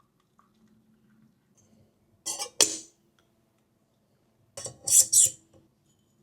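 Cutlery and dishes clinking and clattering in two short bursts of several knocks, about two seconds in and again near five seconds.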